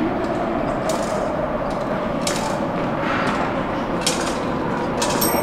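Steady hum of a metro station ticket hall, with a few sharp clicks and taps about a second apart.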